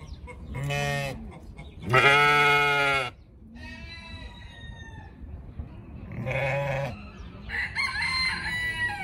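Goats bleating three times: a short call about a second in, a long loud one lasting about a second from two seconds in, and another near six and a half seconds. Chickens cluck with higher, chirpy calls near the end.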